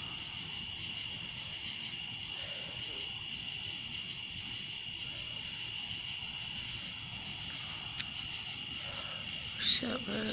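Steady chorus of night insects, crickets, with a constant high trill and a faster pulsing buzz above it. A single sharp click about eight seconds in, and a brief voice near the end.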